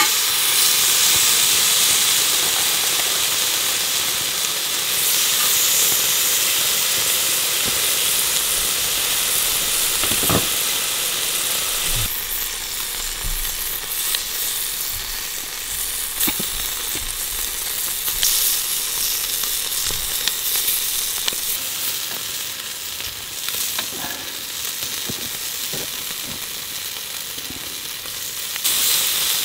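Dakgalbi (spicy chicken) sizzling steadily on a hot grill plate, with scattered light taps and scrapes of a utensil stirring it from about ten seconds in.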